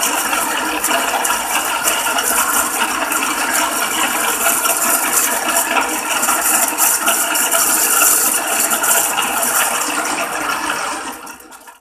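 Small metal lathe turning a Penn 950 SSm fishing reel spool, the cutting tool scraping away the salt-corroded spool wall with a steady, rattling cutting noise over the machine's run. It falls away near the end.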